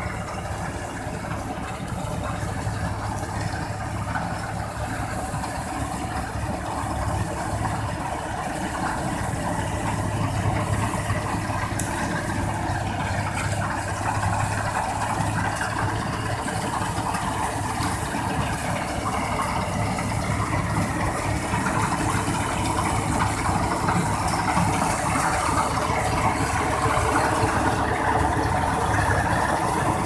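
Combine harvester running steadily as it cuts and threshes wheat: a dense, unbroken engine-and-machinery noise that grows slightly louder toward the end.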